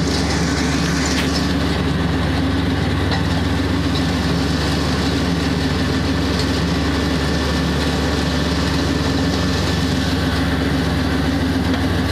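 Zero-turn riding mower's engine running steadily at a constant speed while the mower is driven.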